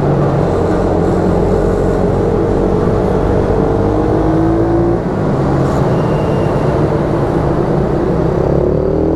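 YCF 88 cc mini moto's single-cylinder four-stroke engine, heard from the rider's helmet, pulling hard with the revs climbing, falling off briefly about five seconds in, then climbing again, with another rise near the end.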